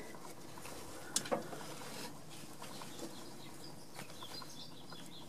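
Faint handling noises of rubber vacuum hoses being worked onto an EVAP purge solenoid under a van's hood, with two small clicks about a second in over a low steady hiss.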